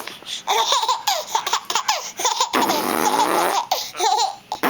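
A baby laughing in repeated short, high-pitched bursts of giggles.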